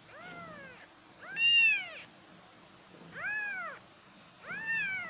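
Cat meowing four times, each meow rising then falling in pitch, the second one the loudest.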